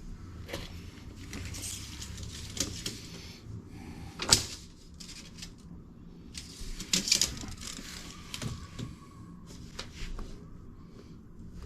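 Intermittent clicks and knocks of hands handling pipe fittings and tools, with one sharp knock about four seconds in and a brief cluster of clatter about seven seconds in.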